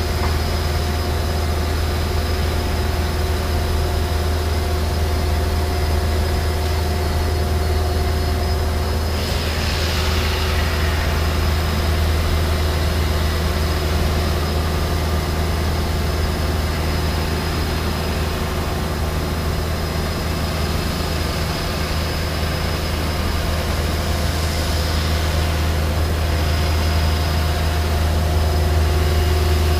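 ESCO PM III 1530 abrasive-wire CNC profile saw running as it cuts a dense polyisocyanurate (PIR) foam block: a steady machine hum with a low drone and a few steady tones. Twice, about ten seconds in and again near the end, a hissing swell rises and fades.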